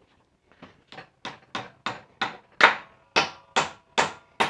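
A hammer driving nails into a wooden 4x6 post: a steady run of blows, about three a second, starting as light taps and growing into hard, ringing strikes.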